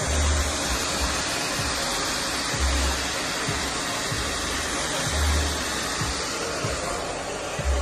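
Wavytalk 1875 W ionic hair dryer running steadily, a full rushing blow of air, with a short low swell about every two and a half seconds.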